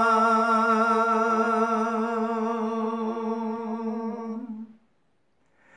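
An elderly man's unaccompanied voice holding one long note at the end of a line of a Gojri folk song (bait), with a slight waver. It fades gradually and stops about four and a half seconds in.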